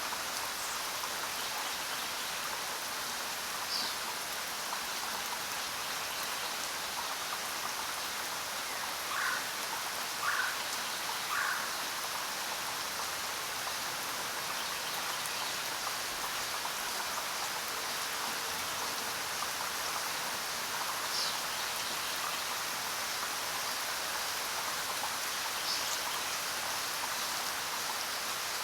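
Steady rain falling, an even hiss throughout. Three short animal calls about a second apart come near the middle, and a few brief high chirps are scattered through.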